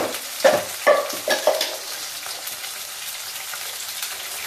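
Cubed potatoes frying in oil in a stainless-steel pan, with a steady sizzle. In about the first second and a half, five sharp metallic clinks ring out as the steel spatula knocks against the pan.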